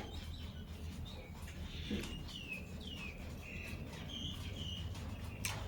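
Small bird chirping several times in short falling notes, over a low steady background hum; a sharp click near the end.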